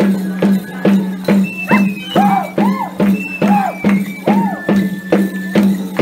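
Cumbia dance music at a steady beat of about two strokes a second, with a low held note underneath and a melody line that slides up and down in pitch.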